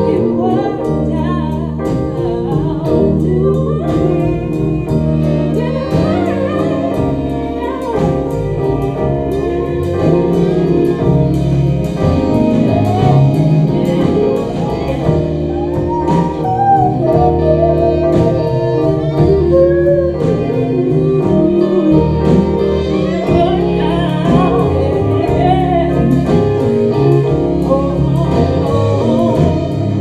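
Live band playing a song with women's voices singing, saxophone, bass and a steady drumbeat.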